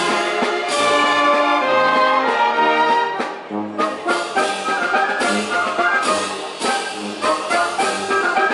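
Live orchestra playing: held chords for about three seconds, a brief drop in loudness, then shorter, more separate notes.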